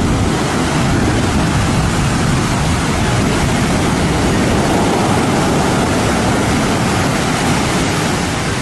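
Heavy ocean surf, large waves crashing as a steady, dense rush of noise that eases slightly near the end.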